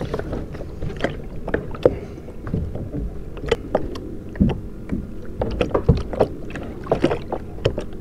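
A plastic fishing kayak being moved and handled: irregular knocks, taps and clicks over a low rumble, with no single loud event.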